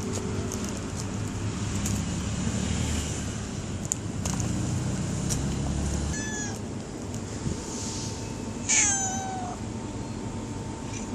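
Stray cat meowing twice: a short meow about six seconds in, then a louder, longer meow that falls in pitch near the end. A low background rumble runs under the first half.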